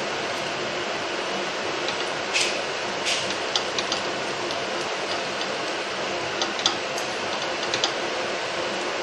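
Steady hiss of appe frying in ghee in a cast-iron appe pan on a gas burner, with a metal spoon clicking against the pan several times as the appe are turned.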